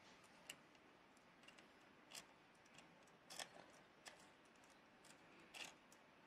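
Near silence broken by about five faint, irregularly spaced clicks and light taps.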